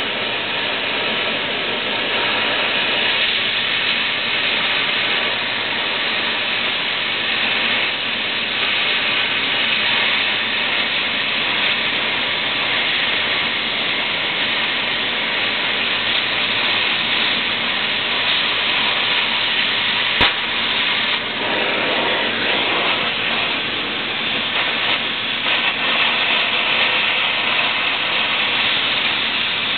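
Steady loud hissing noise, with a single sharp click about two-thirds of the way through.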